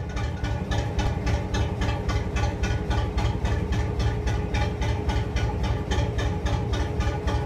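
National 2DM two-cylinder diesel engine of a narrowboat running steadily at a slow, even beat of about five strokes a second, echoing inside a canal tunnel.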